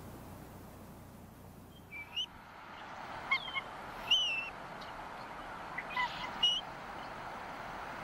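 Bald eagles calling: about six short, high chirps, some sliding down in pitch, spread irregularly after the first two seconds, over a steady background hiss.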